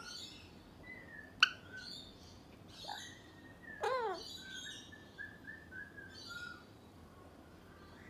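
Alexandrine parakeet chirping and whistling in short notes. A sharp click-like note comes about a second and a half in, a louder call falling in pitch about four seconds in, and then a quick run of short whistles.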